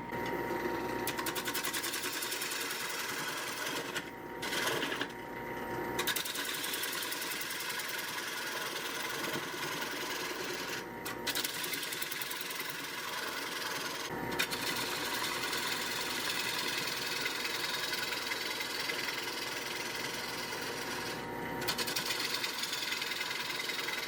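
Wood lathe spinning a bowl held on a vacuum chuck, with a turning tool cutting away the tenon on the bottom: a steady rasping cut, broken several times where the tool briefly comes off the wood.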